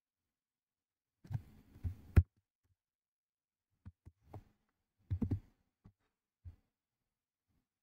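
Faint, scattered clicks and soft thumps of a computer keyboard and mouse, in a few short clusters, with the loudest sharp click about two seconds in.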